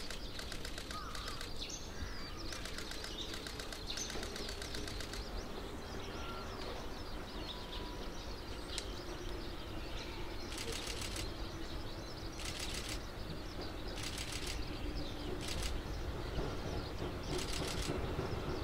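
Birds chirping, with short high trills repeated every second or two. A low rumble grows near the end as a train approaches.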